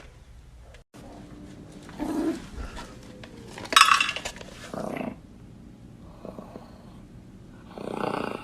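A pet animal making a few short sounds, the loudest a brief noisy burst a little under four seconds in.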